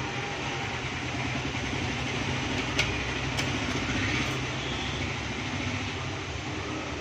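Steady mechanical hum and noise, with two small sharp clicks about half a second apart nearly three seconds in.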